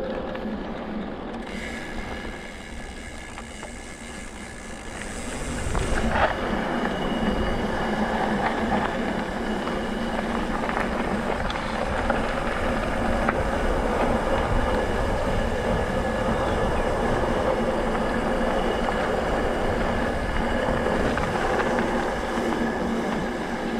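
Mountain bike rolling along a gravel track: continuous tyre noise on the loose surface with the bike rattling over the bumps. It gets louder about five seconds in as the ride picks up speed.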